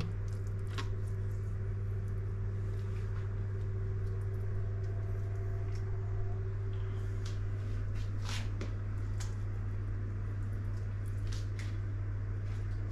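A steady low hum, with a few faint clicks and soft dabs from a basting brush being dipped into a ceramic bowl and worked over the soy-and-oil glaze on a whole suckling pig.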